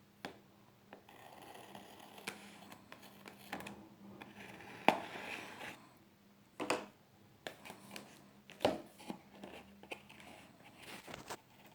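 Hands handling perfume packaging during an unboxing: a stretch of rustling and scraping, then several sharp clicks and knocks, the loudest about five seconds in.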